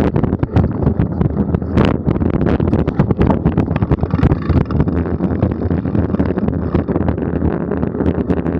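Mountain bike riding a rough dirt singletrack, with wind buffeting the microphone and a constant rattle of small knocks and clicks from the bike over the bumpy trail.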